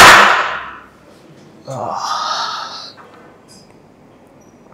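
A man's heavy, forceful breathing while lifting a barbell: a loud exhale at the start that fades within a second, then another hard breath about two seconds in, lasting about a second.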